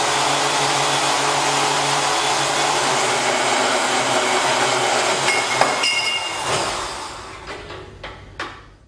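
Portable electric metal-cutting power tool running under load. About five and a half seconds in come a few metallic clinks and rings as the cut finishes. The motor then winds down, with a few clicks, and stops near the end.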